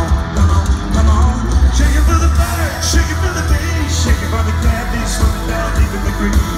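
Live country-rock band playing loudly over a large concert PA system, with heavy bass, drums and singing.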